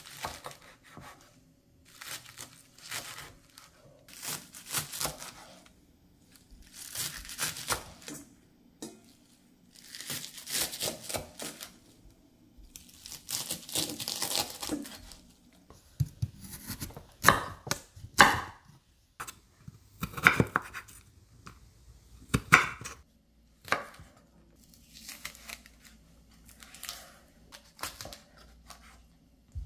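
Chef's knife slicing through a bundle of Korean chives on a wooden cutting board, each stroke a short burst of crisp cutting noise, then sharper knocks of the blade on the board. Near the end, softer cuts through green chili peppers.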